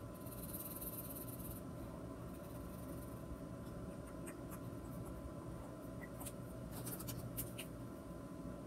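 Drawing on paper by hand: a scratchy stroke about a second long near the start, then a few light taps and clicks, over a steady low room hum.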